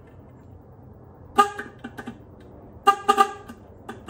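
A loose car horn powered with test leads, giving several short toots as the lead is tapped on, the first about a second and a half in and a quick pair about three seconds in: the horn works.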